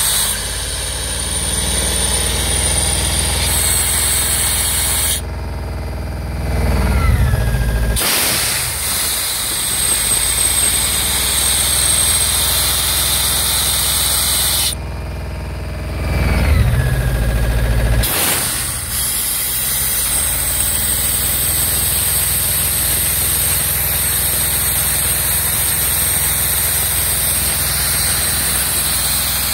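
Atlas Copco XAS57DD portable diesel air compressor running, with compressed air hissing loudly out of its rear outlet valve. Twice the hiss stops abruptly for about three seconds while the engine note swells and glides, then the air blast starts again suddenly.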